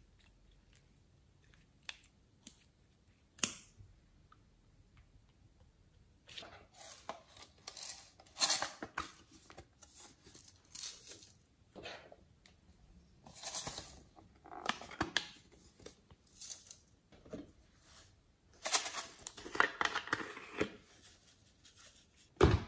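Small plastic packets of glitter and sequins crinkling and tearing open, heard as a string of short rustling bursts, with a few sharp clicks in the first few seconds.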